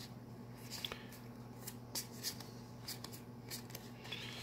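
A handful of Magic: The Gathering trading cards being slid and flicked through in the hands, giving faint scattered papery clicks and scrapes over a steady low hum.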